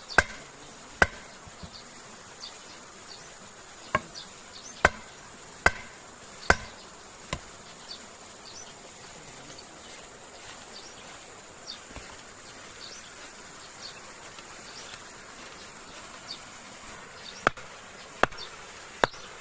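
Sharp knocks of a tool striking wood, in runs of a few strokes about a second apart with a long pause between. A steady high insect drone runs underneath.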